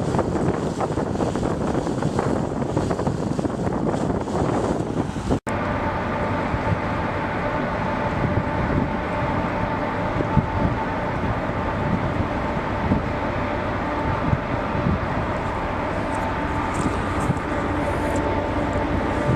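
Rushing, wind-like noise, then after an abrupt cut about five seconds in, a steady mechanical hum with low rumble and a few held tones.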